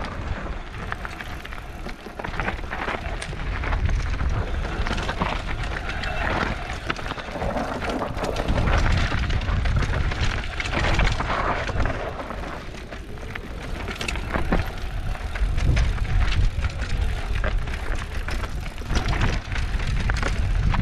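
Mountain bike riding fast downhill on a trail: tyres rolling over the ground with frequent rattles and clicks from the bike over bumps, and gusty wind rumbling on the camera's microphone.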